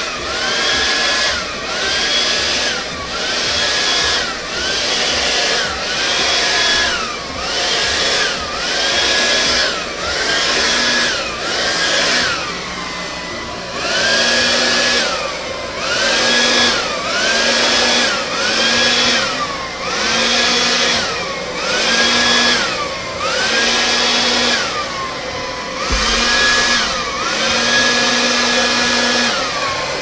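Hair dryer with a narrow 3D-printed nozzle, run on its low setting, blowing wet acrylic paint across a canvas. It goes in short bursts about once a second: the motor whine climbs quickly, holds over the rush of air, then sags as each burst ends, with a brief lull about halfway through.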